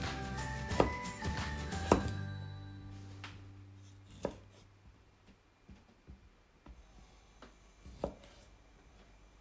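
Background music fading out over the first three seconds. Then a kitchen knife knocks on a cutting board, chopping food with a few separate strokes spaced a second or more apart.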